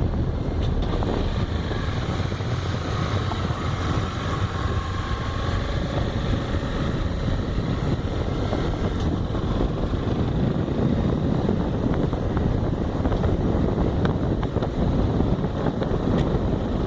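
Honda XRE motorcycle running while riding, with steady wind rushing over the microphone.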